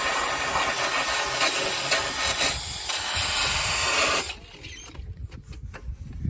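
Power tool stripping rust and paint from a car's steel rear wheel arch: a loud, steady abrasive hiss that cuts off about four seconds in, followed by a few faint clicks.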